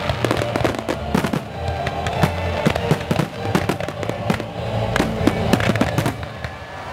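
Aerial fireworks shells bursting in a rapid, irregular run of bangs and crackles, densest about a second in and again around five seconds in, with music playing underneath.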